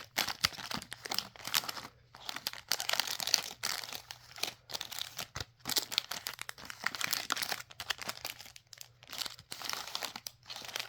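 Sealed trading-pin packs crinkling as they are handled and sorted into piles, with irregular crackling throughout.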